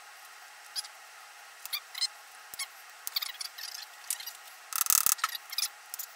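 Scattered metallic clicks and clinks of a socket ratchet and hand tools working the cam cover bolts of a Triumph Daytona 675 engine. A quick, louder run of clicks comes about five seconds in.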